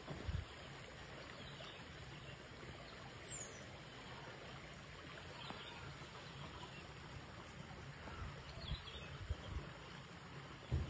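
Shallow river flowing over a gravelly bed, a steady rushing, with a few low thumps now and then and a faint short chirp about three seconds in.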